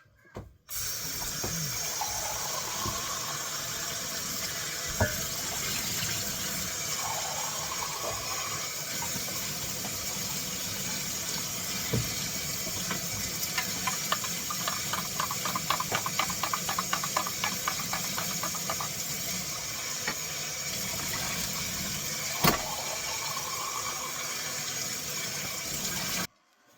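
Kitchen tap running steadily into a sink while a cup is washed, with a few knocks and a spell of quick rattling ticks in the middle. The water starts and stops abruptly.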